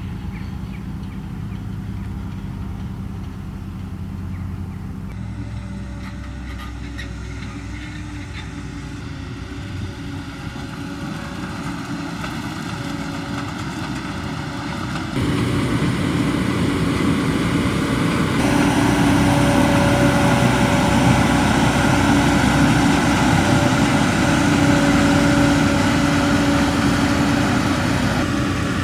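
Heavy farm machinery running steadily at work: the diesel engines of potato-harvest tractors and harvesters. The sound changes abruptly about 5, 15 and 18 seconds in, and is louder for the last part.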